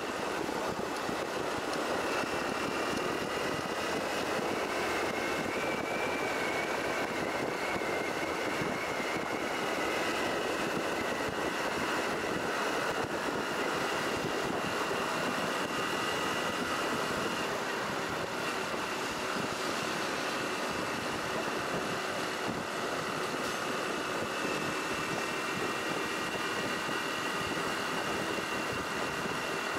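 Honda Cross Cub 110's air-cooled single-cylinder engine running steadily on the move, with a thin steady whine above the engine noise.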